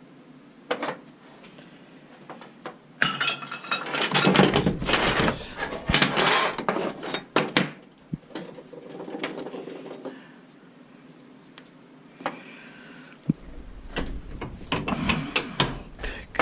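Steel parts and hand tools clinking and knocking on a workbench as a steering tie rod end is handled and screwed onto its thread. There is a single knock near the start, a dense run of clinks from about three to eight seconds in, and more knocks near the end.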